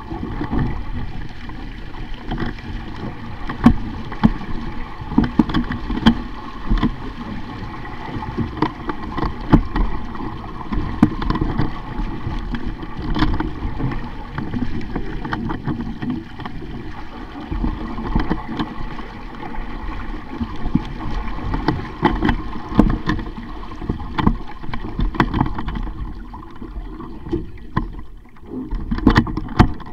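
Sailing dinghy under way: steady water noise along the hull, with frequent irregular knocks and bumps.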